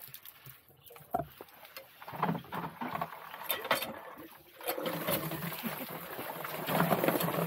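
A hand pump being worked, with water running from its hose into a bucket; the water sound becomes louder and steady from about halfway through.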